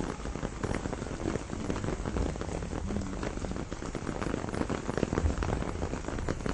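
Steady rain shower, with many separate drops striking close by.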